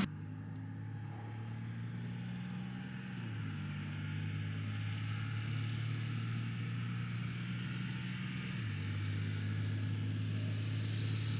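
Stock 24-valve 5.9 L Cummins inline-six diesel truck running at a distance, a steady low exhaust note that steps down in pitch twice, about three and nine seconds in, and slowly grows a little louder.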